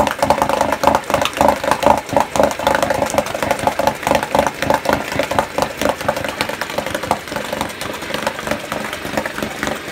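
1985 Mariner 4 hp two-stroke outboard motor, Yamaha-built, running steadily with its leg in a bucket of water, its carburettor freshly cleaned. It runs a little quieter in the second half.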